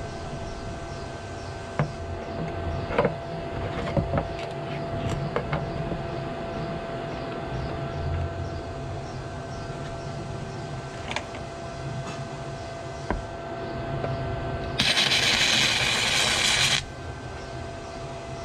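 Scattered clanks of steel pieces being handled over a steady hum, then, in the last third, about two seconds of loud crackling hiss from an arc welder laying a tack weld on steel flat bar, starting and stopping abruptly.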